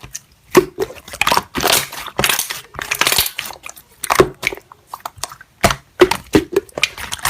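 Slime being squished and pressed by hand, giving an irregular run of crackly, crunching pops.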